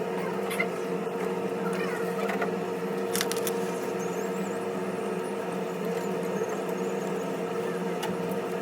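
Steady machine hum, like a small motor or fan running, with a few light clicks.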